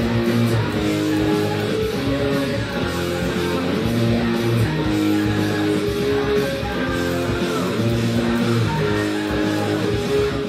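Semi-hollow electric guitar played through an amplifier: a run of held notes and chords, each ringing on before the next.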